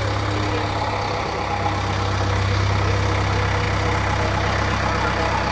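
Diesel engine of a JCB backhoe loader idling steadily close by, a constant low hum.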